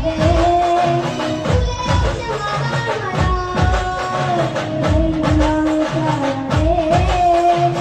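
A child singing a Khandeshi folk song in long, held, wavering notes, over drum accompaniment whose low strokes slide down in pitch.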